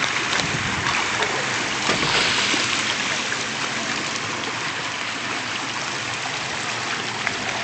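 A school of bunker (Atlantic menhaden) crowded in a pound net trap, churning and splashing at the surface: a steady rush of many small splashes.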